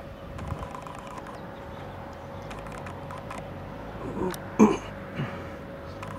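A person makes a brief throat-clearing sound about four and a half seconds in. Scattered small clicks and a faint steady hum run beneath it.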